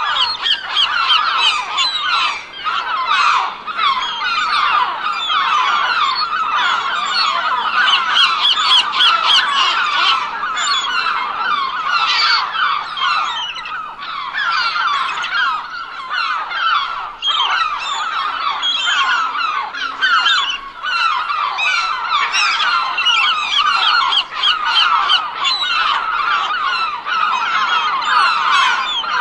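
A large flock of gulls calling all together, many harsh cries overlapping without a break.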